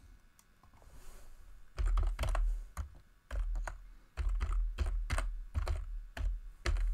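Computer keyboard being typed on: a quick run of key clicks, each with a dull thud, starting about two seconds in.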